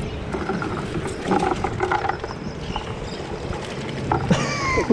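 Water streaming, spraying and dripping off a cast net as it is shaken out to dump a load of greenback baitfish. Near the end there is a short, high, falling call.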